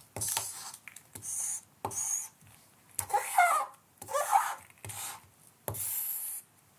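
Stick of charcoal dragged across paper in about six separate scratchy strokes. Two strokes in the middle squeak as the charcoal catches.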